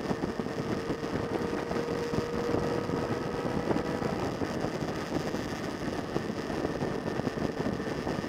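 Motorcycle engine running steadily at cruising speed, with wind and road noise rushing over an onboard camera's microphone.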